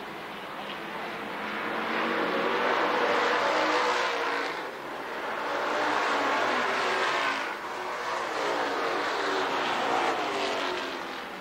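Stock car engines racing past on an oval track, the sound swelling and fading three times as the cars come by and pull away, with the engine pitch rising and falling.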